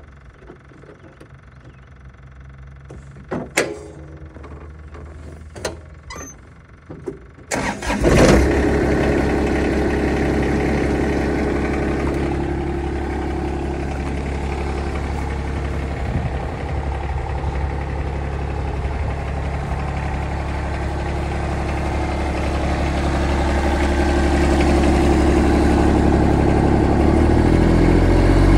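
Kubota ZD1211 zero-turn mower's three-cylinder diesel engine: after a few clicks it cranks and catches about eight seconds in, then idles steadily. Near the end it revs up as the throttle lever is pushed forward.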